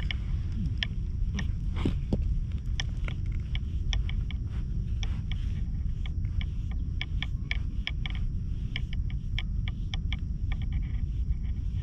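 A nekojasuri cat grooming brush being stroked over a cat's fur, giving many short scratchy clicks at an irregular pace, over a steady low rumble.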